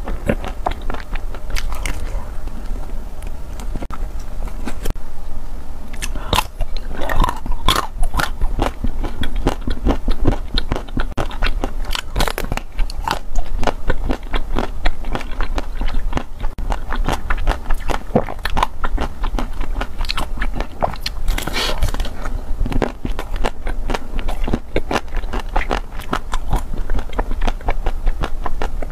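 Close-miked biting and chewing of frozen ice cream bars on sticks: many small crunching and crackling clicks as the coated ice cream is bitten and chewed, over a low steady hum.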